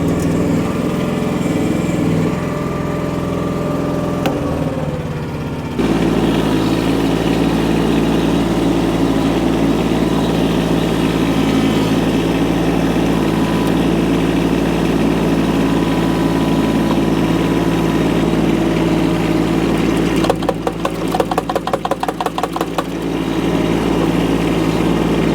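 Micro excavator's small engine running steadily while working; it steps up louder about six seconds in. Near the end there are two or three seconds of rapid rattling with the engine dipping.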